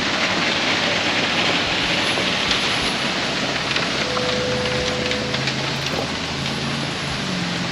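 Concrete mixer truck pouring wet concrete: a steady rushing hiss of concrete sliding down the chute over the truck's engine running.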